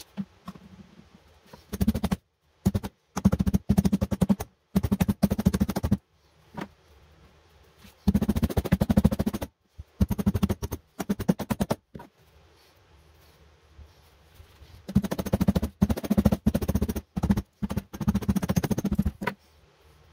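Hammer pounding the new rubber sole of a Birkenstock clog to seat it on the cork footbed after gluing. The blows come in quick runs of rapid taps, each run a second or two long, with short pauses between.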